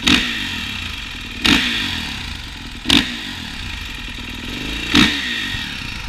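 Four-stroke Kawasaki KX450 dirt bike engine idling, blipped four times; each sharp rev falls back to idle.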